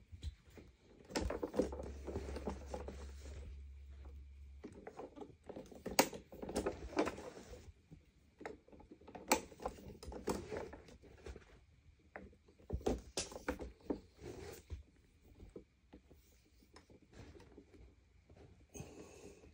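Irregular clicks, knocks and rustling as hands handle a Sanitaire SL635B upright vacuum, with a faint low hum for a few seconds near the start.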